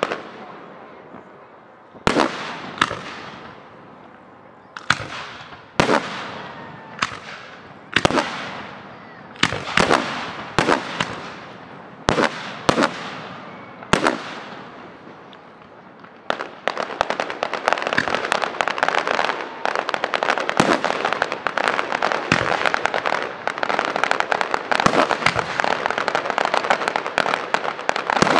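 Aerial firework shells bursting: separate sharp bangs, each dying away in an echo, about one every second. About sixteen seconds in they give way to a dense, continuous run of rapid crackling pops.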